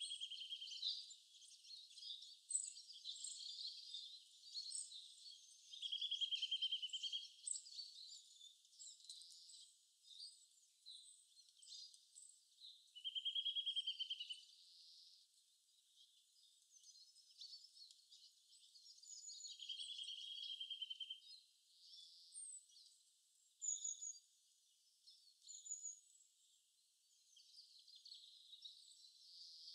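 Faint birdsong: several birds chirping high and short, with one bird repeating a buzzy trill about every seven seconds.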